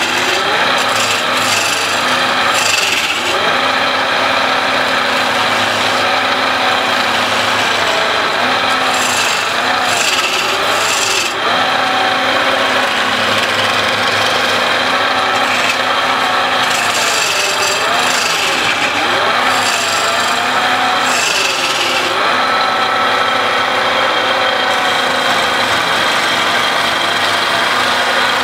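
Wood lathe spinning a long wooden sofa-leg blank while a hand-held turning chisel scrapes and cuts it, shavings flying off. There is a steady scraping rasp of steel on wood over the lathe's hum, which wavers up and down, and bursts of sharper cutting noise come and go.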